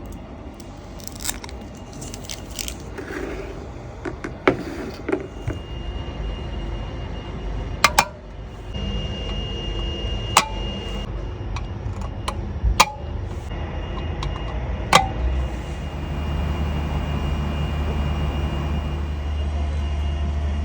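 Scattered sharp clicks, knocks and light scrapes of small parts being handled and snapped into place. A steady low hum begins about 15 seconds in and holds.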